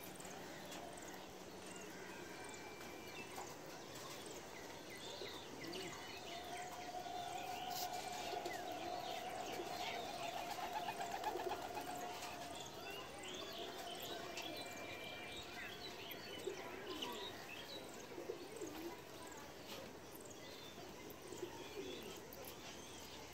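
A flock of domestic pigeons feeding, with cooing, scattered wing flaps and the light ticking of beaks pecking at grain on concrete. Small birds chirp over them throughout.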